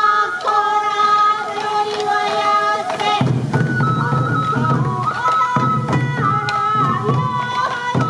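Traditional Morioka sansa dance music: a high bamboo-flute melody moving in held steps, over taiko drumming.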